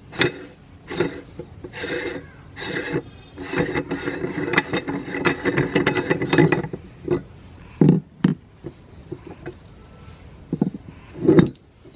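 Meat grinder crushing a large crunchy cookie: irregular crunching and grating, densest from about four to seven seconds in, then a few scattered cracks.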